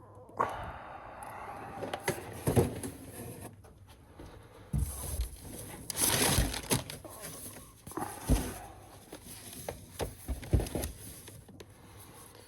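Items being handled and set down: irregular knocks, clicks and scrapes with some rustling.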